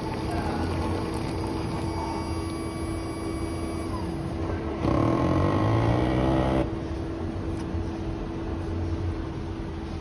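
Keurig Eccellenza Touch coffee machine dispensing a latte into a paper cup: a steady machine hum with a constant tone, rising to a louder stretch of about two seconds about five seconds in as the pour finishes.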